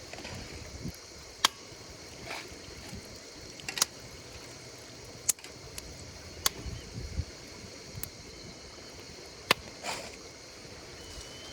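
Wood fire crackling, with sharp pops every second or two over a soft hiss, against a steady high chorus of insects chirping.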